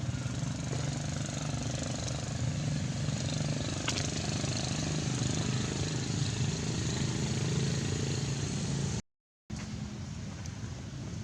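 A steady low mechanical drone, like a motor running, that cuts out completely for about half a second some nine seconds in and then carries on.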